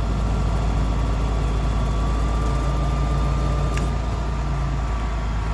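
Stump grinder engine running steadily under light load, with a thin steady whine over the drone and one sharp click near the end.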